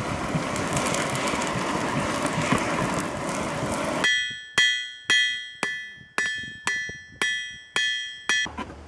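Charcoal forge fire rushing steadily for about four seconds, then about nine hammer blows on a steel anvil, roughly two a second, each ringing clearly as red-hot car-spring steel is shaped into a spoon-knife bend.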